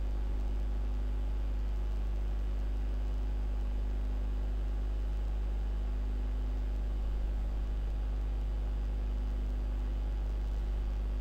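Steady low electrical hum with faint hiss, the background noise of the narration microphone between words.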